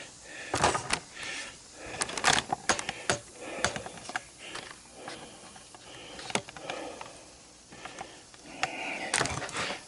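Irregular clicks, knocks and rattles of hands and tools handling a washing machine being stripped for scrap, with sharper knocks about half a second in, at two seconds and near the end.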